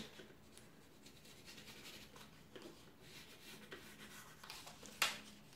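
Red pencil scratching faintly across a paper sewing pattern in a series of light strokes as a curved line is drawn, with one sharper, louder scratch about five seconds in.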